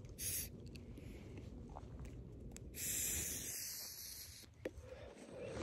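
A person vaping cannabis: a short breathy hiss near the start, then a longer breathy hiss of about a second and a half in the middle as the vapour is drawn or blown out.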